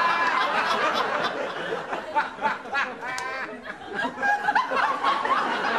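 Sitcom studio audience laughing, many voices overlapping in a dense mass.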